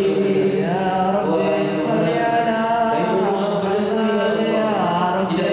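Men's voices chanting selawat, devotional praise of the Prophet Muhammad, together into microphones. It is a slow, melodic line of held notes that glide up and down, with no drumming.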